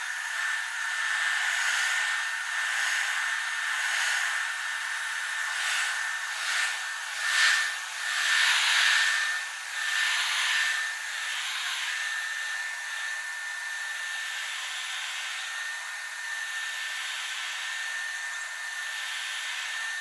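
Bissell ProHeat Advanced upright carpet cleaner running: a steady motor whine with a constant high tone over a broad suction hiss. The hiss swells louder several times between about six and eleven seconds in as the machine works the carpet.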